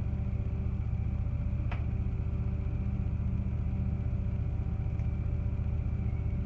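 Steady low mechanical hum with a few steady tones above it, unchanging throughout, and a brief faint squeak about two seconds in.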